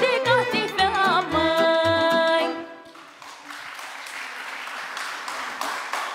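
End of a Romanian folk song: a woman sings with a folk band of violins, double bass and guitar, holding a final note before the band stops about two and a half seconds in. Audience applause follows.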